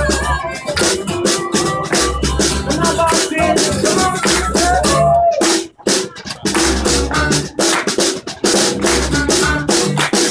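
Live acoustic band music: acoustic guitar, upright bass and harmonica over steady percussive hits. The band stops together for a split second a little past halfway, then comes back in.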